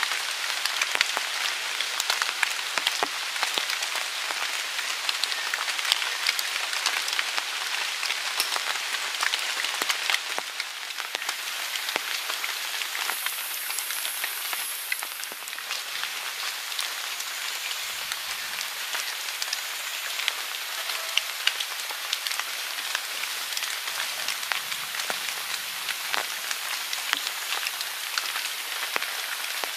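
Steady rain falling on forest leaves and a tarp shelter: a continuous hiss thick with separate drop hits.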